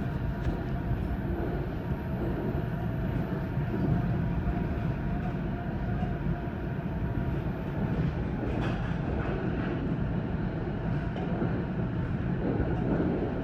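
NJ Transit commuter train running along the line, heard from on board: a steady rumble of wheels on rail. A thin high whine stops about two-thirds of the way through.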